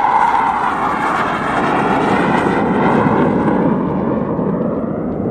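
Military jet making a low pass overhead: a loud jet roar whose pitch slides steadily down as it goes by and heads away, easing off a little near the end.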